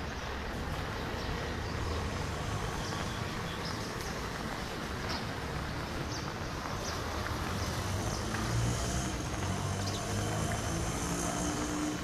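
Street traffic: a steady haze of vehicle noise with engine hum that grows a little louder about two-thirds of the way through as a vehicle draws near.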